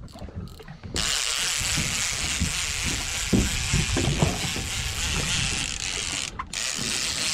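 Fishing reel ratcheting as a hooked fish pulls on the line, starting about a second in and stopping briefly near the end, with faint voices underneath.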